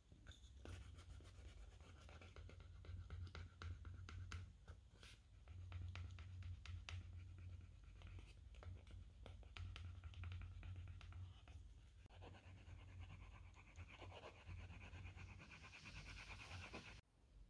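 Wooden edge burnisher rubbed quickly back and forth along the edge of a tooled leather panel, a faint scratchy rubbing with many small clicks, slicking the edge smooth with Tokonole burnishing gum. The rubbing grows a little stronger near the end, then stops.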